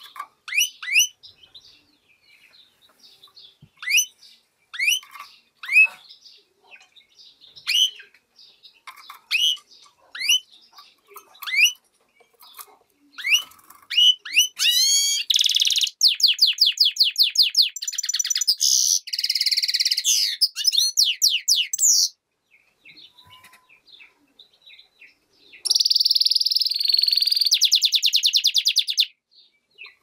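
European goldfinch × canary hybrid (mule) singing: scattered short, high chirping notes at first, then about halfway in a long continuous song of rapid trills, a pause, and a second shorter trilled phrase near the end.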